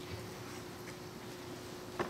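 Quiet room tone in a large hall: faint background noise with a thin, steady hum and no speech.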